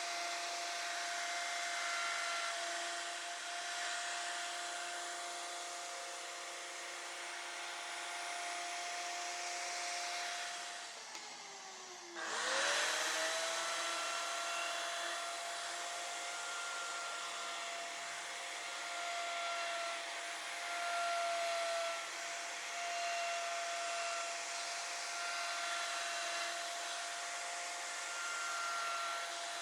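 CNC router spindle running at high speed while its bit carves MDF: a steady high whine over a hiss of cutting. About eleven seconds in the whine slides down in pitch and dips, then comes straight back at full pitch.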